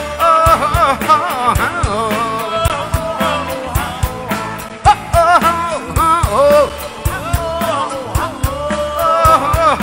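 A live band playing a song with a lead vocal: a sung melody over a steady drum beat.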